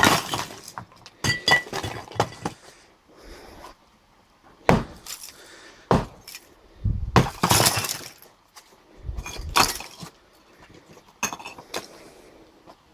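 Sledgehammer blows against a block wall, about seven heavy strikes at irregular intervals, each followed by crumbling and clattering debris. The strike about seven seconds in brings the longest crash.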